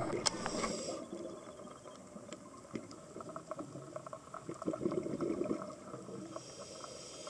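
Underwater ambience: bubbling and crackling with many small ticks, with louder bursts of bubbles at the start and about five seconds in.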